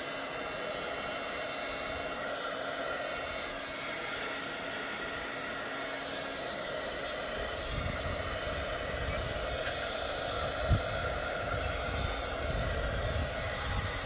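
Darice embossing heat tool running steadily, its fan blowing hot air onto tulle flower petals to melt them. From about halfway, wind rumbles on the microphone under the blower's noise.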